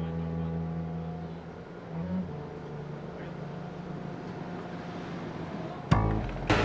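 Steady low drone of heavy machinery at a tunnel shaft head, shifting slightly in pitch about two seconds in, then a sudden loud thump near the end.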